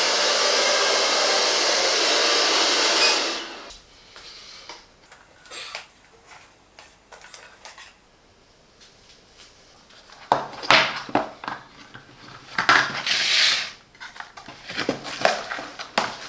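GRUNDIG VCR 2330 robot vacuum's suction motor running steadily, then switching off about three seconds in. Afterwards come quiet clicks, and from about ten seconds in a run of sharper plastic clicks and clatter.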